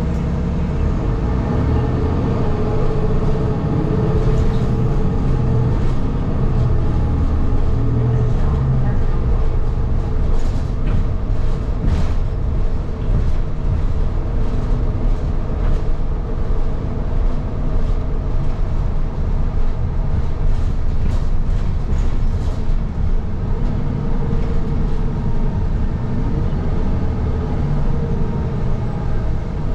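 City transit bus in motion, heard from inside the cabin: a steady low engine and road rumble, with clusters of rattling clicks about a third of the way in and again past two-thirds.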